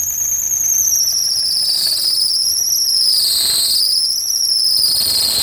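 Maruti Suzuki Alto 800's three-cylinder engine running, with its drive belt giving a loud, high-pitched squeal whose pitch wavers and dips twice. The engine runs with a misfire, and under the belt squeal is the engine noise that the mechanic suspects comes from inside the engine after it ran without oil.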